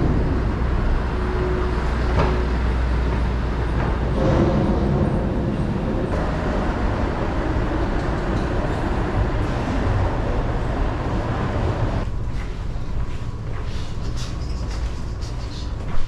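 Steady low rumble of a car ferry's onboard machinery heard from inside the ship. About twelve seconds in it becomes quieter and thinner, with scattered light clicks and knocks and one sharp knock at the end.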